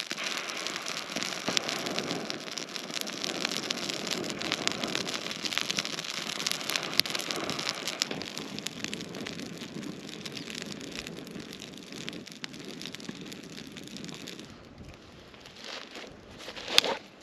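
Small campfire of dry sticks crackling close up: a steady hiss with a dense patter of small pops. It turns quieter about fourteen seconds in, and one louder sharp crack comes near the end.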